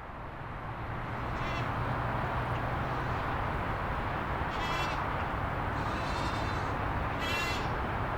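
Several short bird calls, the two loudest about halfway and near the end, over a steady rushing background noise that swells in during the first second or so.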